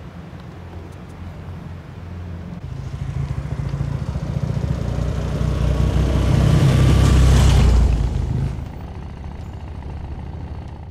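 BMW R90S flat-twin motorcycle engine running as the bike rides up the road toward the camera, growing louder to a peak about seven seconds in, then dropping sharply as it passes and carrying on at a lower, steady level.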